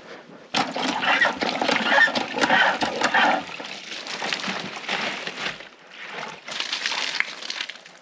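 Red cast-iron hand pitcher pump being worked, water gushing and splashing into a large plastic water jug. It starts suddenly about half a second in, dips briefly about six seconds in, then picks up again.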